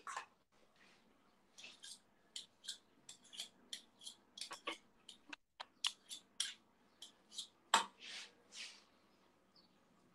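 Metal spoons clinking and scraping against a steel saucepan and each other as thick tomato bread mash is scooped and shaped into quenelles: a string of light clicks and scrapes, with a louder knock about eight seconds in followed by two short scrapes.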